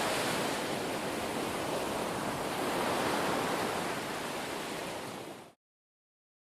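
A steady rushing noise, like water or wind, that cuts off abruptly about five and a half seconds in.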